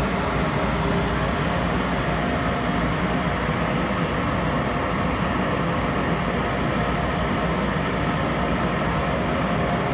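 EMC500-series electric multiple unit standing at the platform, giving a steady hum with a few faint steady tones and no change in pitch.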